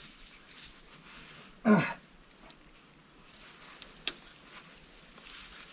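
A dog barks once, a short bark falling in pitch, about two seconds in. Light metallic clinks and jingling follow a little later.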